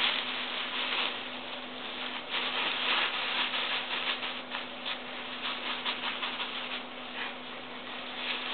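Thin plastic bag crinkling and rustling in quick, irregular crackles as a hand rubs and pats it on a cat's head.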